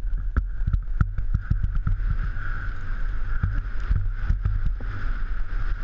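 Mountain bike rattling at speed down a rough dirt trail, heard from the rider's helmet camera: a string of irregular sharp knocks and clatters from the bike over bumps and stones. Under them run a heavy low rumble and a steady high whir.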